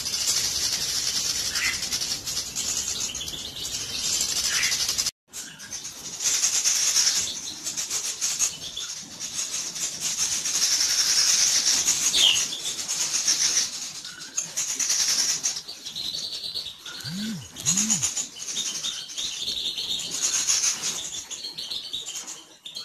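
Small cage birds chirping and twittering, with short high notes repeated quickly in the second half, over rustling from a hand holding a bird. The sound cuts out briefly about five seconds in.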